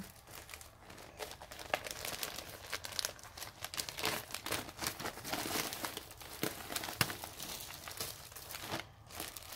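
Packaging of a multi-skein bag of yarn crinkling irregularly as it is opened and a skein is pulled out by hand.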